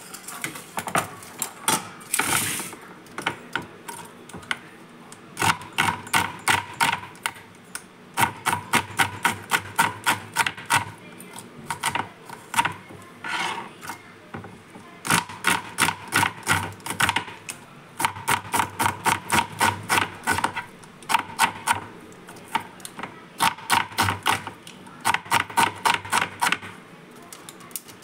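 Kitchen knife chopping onion on a wooden cutting board: rapid, even runs of taps, several a second, in bursts of a few seconds with short pauses between.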